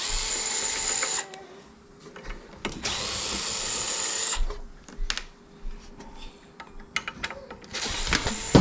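A DeWalt cordless screwdriver backs screws out of the metal housing of an LED beam moving-head light. It runs in two bursts of about a second and a half each, with a high whine. Scattered clicks and a shorter run follow near the end.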